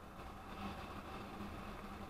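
A small windshielded vehicle running along a street, ridden: a steady hum with a faint higher steady tone over road and wind noise.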